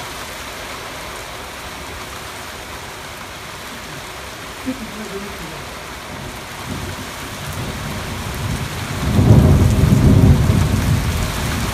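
Thunderstorm: a steady hiss of rain, with a deep roll of thunder building about seven seconds in and loudest a couple of seconds later before easing off.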